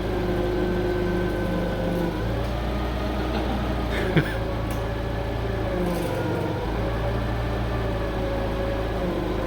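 Forklift running steadily while it pulls, with a whine that slowly rises and falls over a low drone. A few short knocks or clicks come about four seconds in.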